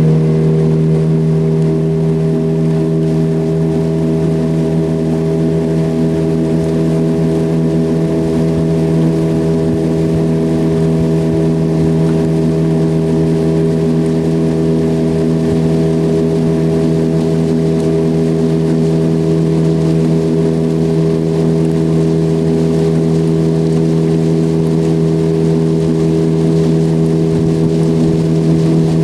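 Boat's outboard motor running at a steady speed, with an even drone that holds one pitch throughout.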